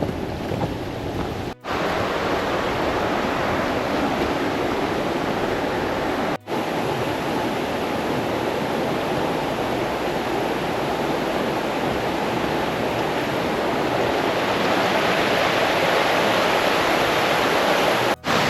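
Steady rushing of a woodland stream, growing a little louder near the end, broken by three very short dropouts.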